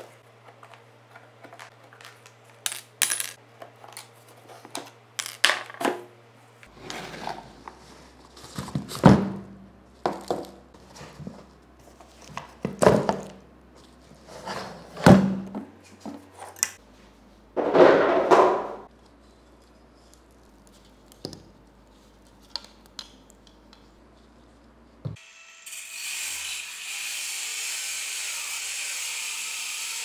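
Clicks, knocks and clinks as the plastic housing of an air-conditioning evaporator is pried apart with pliers, and metal spring clips are pulled off and dropped on a table. About 25 seconds in, an angle grinder starts and runs steadily, cutting through the evaporator's pipe fitting.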